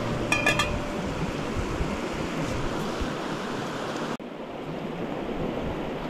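A stainless steel cup clinks a few times with a short ring as it is set on a gas-canister camp stove. After that comes a steady rushing noise, broken by a brief dropout about four seconds in.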